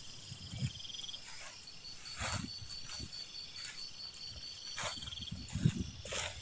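Insects, crickets or similar, trilling in forest undergrowth: a high, evenly pulsing trill that holds for several seconds. A few brief rustles and low gusts come in around it.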